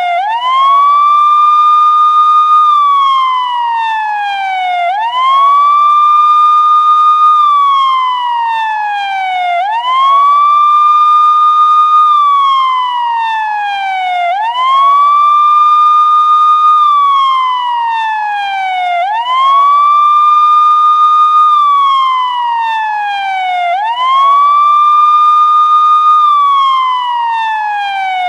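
Police siren in wail mode: a loud tone that sweeps up quickly, holds high for about two seconds, then slides slowly down, repeating about every five seconds.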